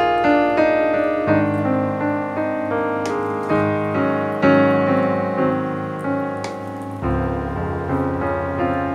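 Background piano music, with notes struck about twice a second.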